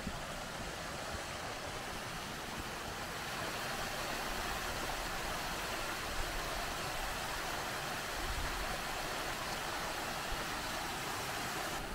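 Mountain stream and small waterfall splashing down over rocks, a steady rush of water.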